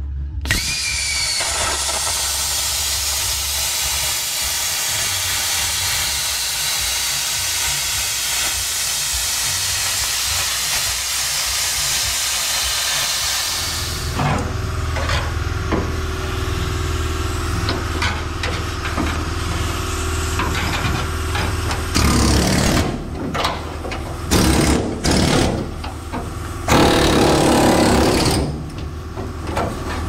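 Pneumatic cutting tool cutting out the rusted sheet-metal cab floor of a 1976 Chevrolet C10 pickup. A steady high hiss gives way about halfway through to a lower steady hum, and in the last third the cutting comes in loud, uneven bursts.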